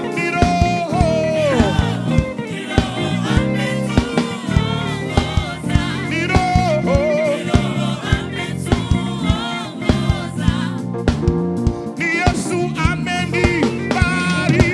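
Live gospel worship song: a choir and lead singers singing over a band with keyboard and a steady drum beat.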